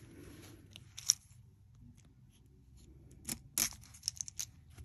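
Scattered light clicks and taps from handling a small round screw-top bead container and a pair of scissors, with a sharp click about a second in and two louder ones a little past three seconds.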